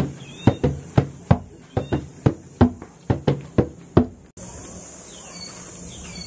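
Wooden hand drums with pegged, laced heads struck with open palms in a loose rhythm, about two to three hits a second, stopping abruptly about four seconds in.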